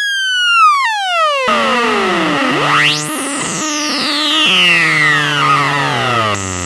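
Teisco 110-F analog synthesizer making sci-fi sweep effects. It starts with a falling pitch glide, then a fast rising sweep about three seconds in, and then long, slow downward glides over a low tone that steps down in pitch.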